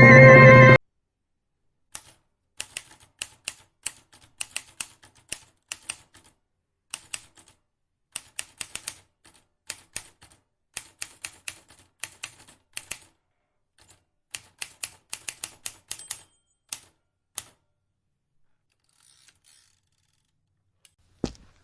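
LEGO Technic plastic pieces clicking and snapping together in quick clusters of sharp clicks, then a pause, with one louder knock near the end.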